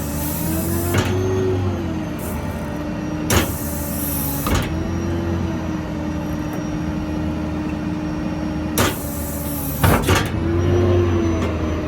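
Truck diesel running with its PTO-driven hydraulic pump whining under the crane's hydraulics; the whine bends up in pitch twice as the crane is worked. Several short, sharp bursts of noise cut in over it.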